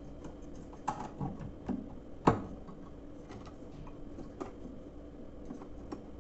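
Scattered clicks and light knocks of small washing-machine transmission parts being handled and set down on a workbench, with one sharper knock about two seconds in.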